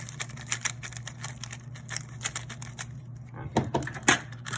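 A 3x3 speed cube being turned quickly by hand: a rapid run of light plastic clicks as its layers turn, with a few louder clacks near the end.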